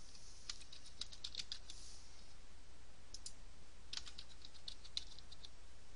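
Computer keyboard keystrokes, faint and clicky, in two quick runs of typing with a pair of clicks between them about three seconds in.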